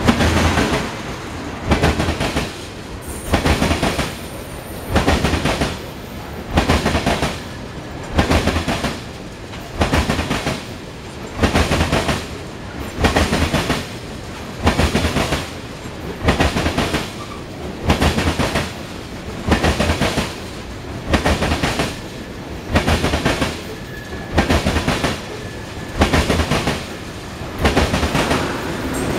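Freight train of tank cars rolling past close by, the wheels clattering over a rail joint in a loud cluster of clacks about every two seconds as each car goes by, over a steady rumble.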